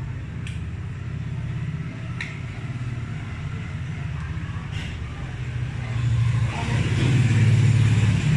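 Car engine running, heard from inside the cabin as a steady low rumble that grows louder about six seconds in, with three faint clicks along the way.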